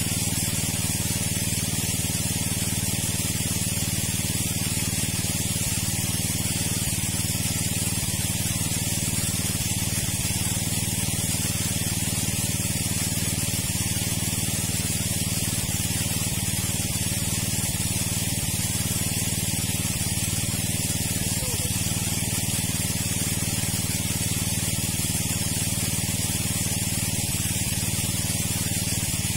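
Water pump running steadily: a constant low hum under an even rushing hiss of spraying water, unchanging throughout.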